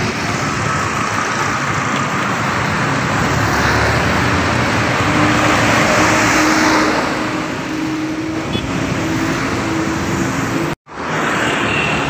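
Road traffic passing close by. A Mercedes-Benz coach bus goes past, its engine and tyre noise swelling to a peak about six seconds in, followed by a steady low hum. The sound cuts out for a moment near the end.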